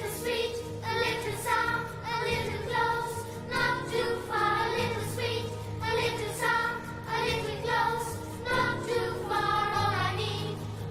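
Background music: a song with a sung melody over a steady bass line.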